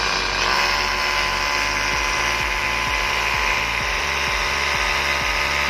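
Cordless hammer drill running loud and steady under load, boring a mounting hole into concrete overhead.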